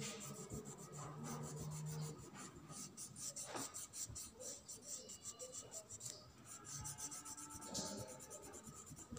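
Red oil pastel rubbed quickly back and forth on drawing paper: a faint, scratchy rubbing of many short, rapid strokes.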